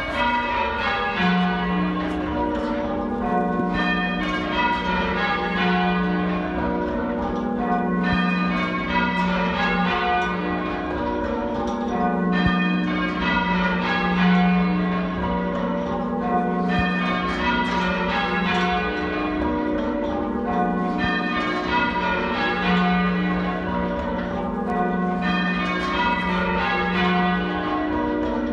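Church bells rung half-muffled in change ringing: the bells strike one after another in descending rows that repeat every couple of seconds, alternate strokes deadened by a muffle on one side of each clapper. Half-muffled ringing is the traditional sound of mourning or remembrance.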